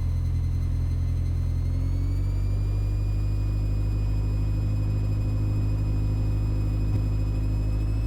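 Mooney M20E's four-cylinder Lycoming engine and propeller coming up to takeoff power for the takeoff roll: a steady drone with a high whine that rises in pitch about two seconds in, then holds.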